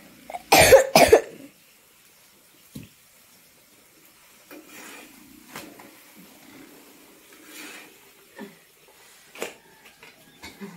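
Two loud coughs in quick succession about half a second in, then quiet with a few faint clicks.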